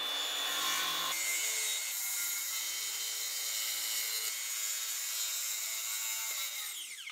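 Makita cordless circular saw running and cutting through a plywood sheet, with a steady whine over the noise of the blade in the wood. Near the end the trigger is released and the blade spins down in a falling whine.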